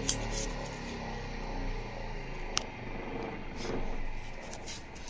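Low electrical hum from the powered-up voltage stabilizer and its load dying away in the first half-second as the power is switched off. Faint handling noise follows, with a sharp click at the very start and another about two and a half seconds in.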